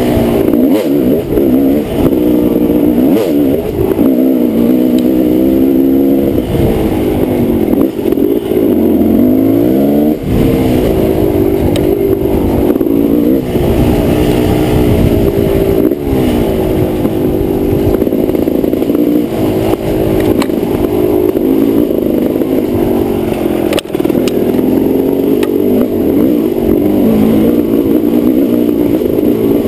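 Kawasaki KX250 dirt bike engine revving up and down continuously as it is ridden hard along a bumpy trail, with wind rumble on the helmet-mounted microphone. A sharp knock comes about 24 seconds in.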